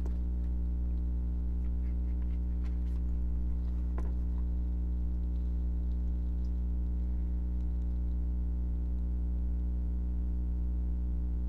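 A steady low hum with a few faint, light clicks.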